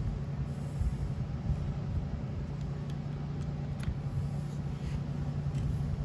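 A steady low hum and rumble in the background, with a few faint light clicks from small metal carburetor parts and a gasket being handled and fitted by hand.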